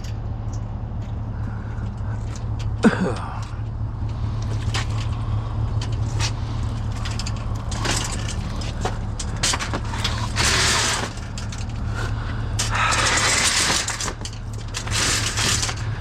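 Metal rattling, clicking and scraping as a big metal dog cage on rollers is handled and loaded into a truck, over the steady low hum of an idling engine. The longest scraping bursts come about ten seconds in and again two to three seconds later.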